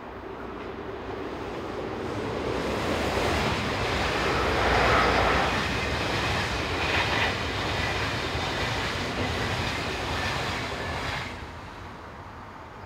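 Electric locomotive-hauled SBB passenger train passing: the running noise of wheels on rail swells as the locomotive approaches, peaks about five seconds in, holds as the coaches roll by, and dies away about eleven seconds in.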